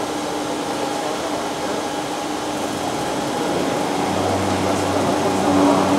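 Steady machine hum from an automated pipe-storage rack system. About four seconds in, a deeper steady drive hum joins, as the overhead gantry crane starts to travel.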